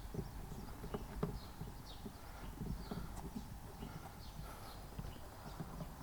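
Faint, irregular soft knocks and clicks of hands and a tool working on a car's door speaker and door panel.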